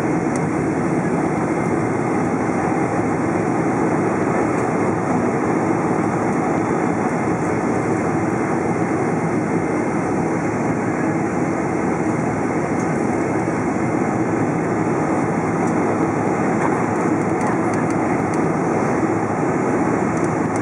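Steady engine and airflow noise inside the cabin of a Boeing 747-400 with Rolls-Royce RB211 engines, descending on approach with flaps extended.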